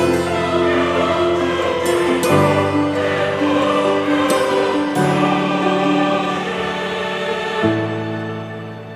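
Music: choral singing, held sustained chords that change every two or three seconds.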